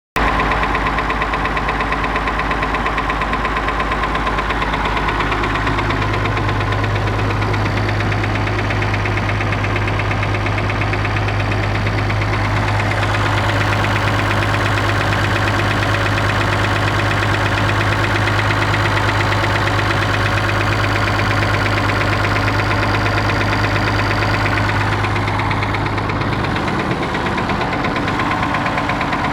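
Perkins T6.354 M six-cylinder turbocharged marine diesel running with a knock. Its note shifts about five seconds in and again near the end.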